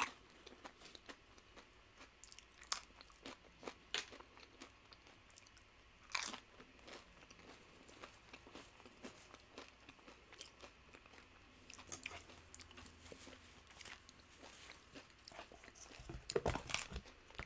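Close-up crunching and chewing of tortilla chips loaded with nacho toppings, a run of scattered crisp crunches with louder ones about six seconds in and near the end.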